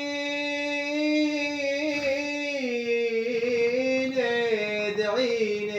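A man's voice singing one long melismatic note in the 'ataba folk style, wavering and sliding gradually lower.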